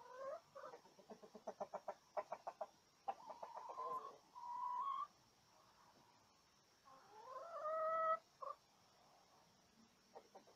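Chickens clucking in quick runs of short notes, then drawn-out pitched calls, one rising and the loudest about seven to eight seconds in.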